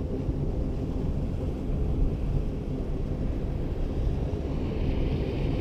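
Wind buffeting the microphone: a steady, low rumble with no distinct events.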